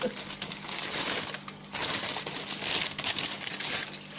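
Wrapping paper crinkling and rustling in several bursts as the layers around a parcel are pulled off by hand.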